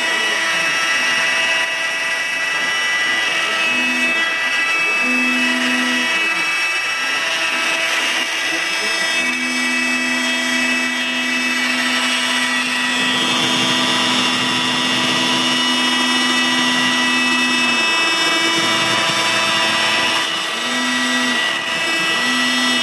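Wood router spindle on a CNC router table running at speed and cutting a plexiglass part, a steady high whine over machine noise. A lower tone switches on and off several times as the machine moves.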